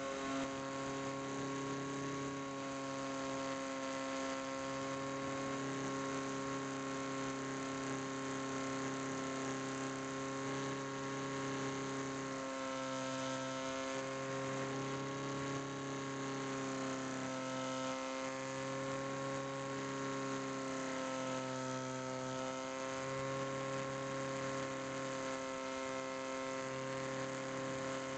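Electric motor and pusher propeller of a HobbyKing Bix3 RC plane buzzing steadily in flight, picked up by the onboard camera. The pitch dips slightly and shifts a few times from about halfway through, as the throttle changes.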